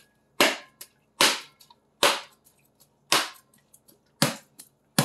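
A whole coconut, still in its plastic wrap and held in the palm, struck hard again and again to crack the shell open: about five sharp knocks, roughly one a second.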